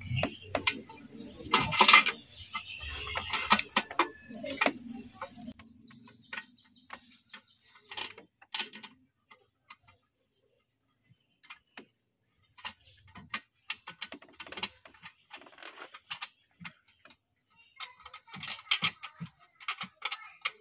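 Intermittent metallic clicks and clinks of a wrench working loose the oxygen sensor on a Ford EcoSport's 1.6 engine, with one loud clank about two seconds in. Birds chirp faintly in the background.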